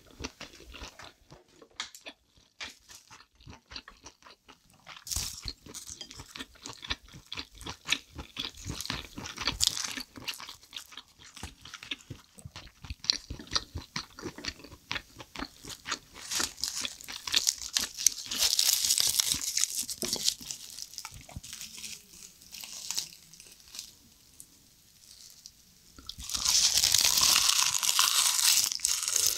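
Close-miked chewing and wet mouth clicks of eating soy-sauce marinated crab and rice. Near the end a loud, dense crackling crunch as a rice-filled dried laver (gim) wrap is bitten into.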